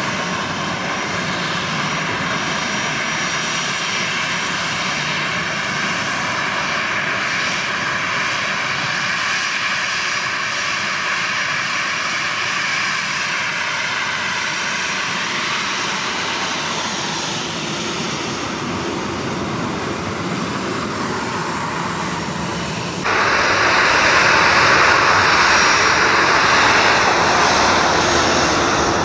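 Boeing 737-800's CFM56 jet engines running at taxi power as the airliner taxis by, a steady rushing whine with faint held tones. The sound steps up louder and brighter about four-fifths of the way through.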